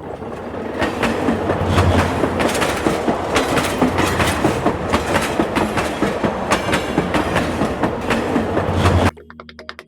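Loud, continuous mechanical rattling clatter with irregular sharp clicks, like wheels running over rails, which stops abruptly near the end.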